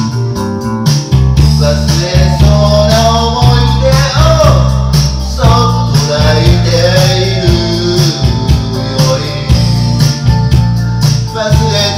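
A man singing karaoke into a microphone over a loud backing track with a steady beat.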